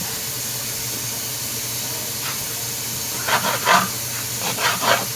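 Chicken and steak pieces sizzling in an Instant Pot on sauté, a steady hiss. The steak is still partly frozen. A few short, louder sounds sit over the hiss in the last two seconds.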